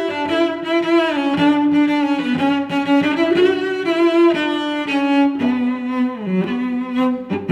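Background music: a slow melody of sustained notes, with a downward slide in pitch about six seconds in.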